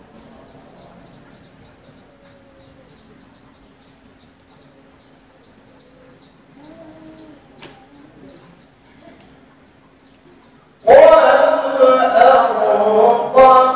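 A pause in a classical Quran recitation (tilawah), with a faint hum and a run of faint, high, short chirps at about three a second. About eleven seconds in, the qori's amplified voice comes back in loudly with a long, ornamented melodic phrase.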